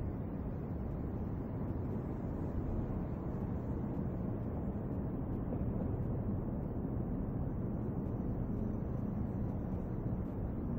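Steady low rumble of outdoor background noise picked up by a compact camera's built-in microphone, with a few faint clicks.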